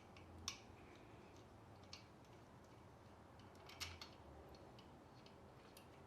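Near silence with a few faint light clicks of small engine parts being handled during hand assembly, the sharpest about half a second in and another just before four seconds in.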